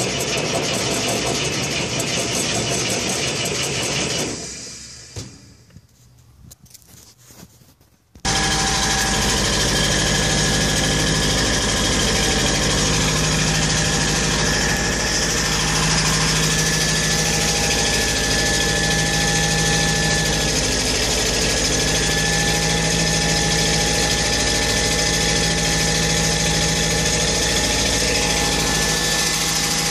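Engine of a portable air compressor turning over for about four seconds, then dying away to a quiet stretch. From about eight seconds in, the engine runs steadily and loudly with an even hum.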